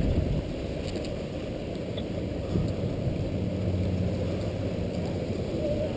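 Low wind and road rumble on a bicycle-mounted camera while riding on a wet street, with the hum of a passing car coming in about halfway through.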